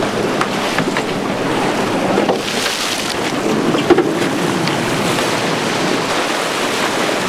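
Wind buffeting the microphone over water rushing and sloshing against a sportfishing boat's hull, with a hooked blue marlin splashing at the surface beside the boat. There is a sharp knock about four seconds in.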